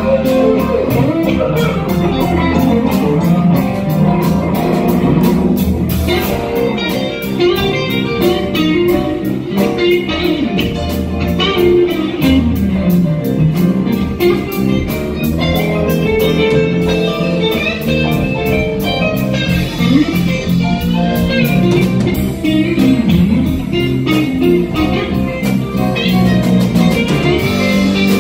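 Live band music: an electric guitar plays a lead line with bending notes over bass guitar and drums.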